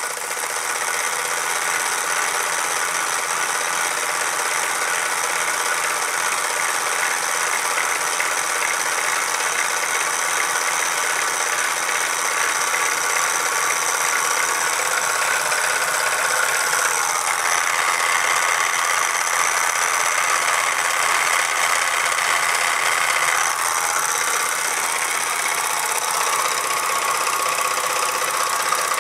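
Mamod SP2D toy steam engine running fast, a quick steady clatter of the piston and flywheel, with the belt-driven dynamo that lights its lamp. The tone shifts twice in the second half.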